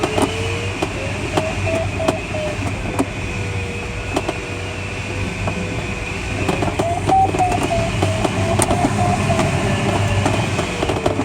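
Airflow rushing over the cockpit of a Schleicher ASK21 glider in flight, with scattered clicks and rattles. An electronic variometer tone runs through it, sliding lower and higher with the lift and rising highest about seven seconds in.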